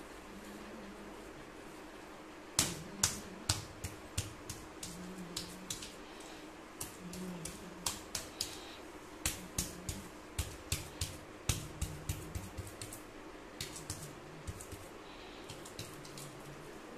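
Bare hands patting and pressing wet clay on a clay idol: a run of sharp, irregular slaps and clicks, loudest a few seconds in and thinning out before the end, over a steady low hum.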